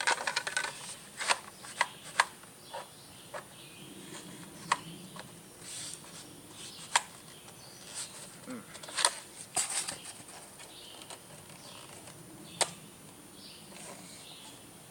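Irregular sharp clicks and knocks of airsoft gun parts being handled and pushed together while an attachment is fitted, a few of them much louder than the rest.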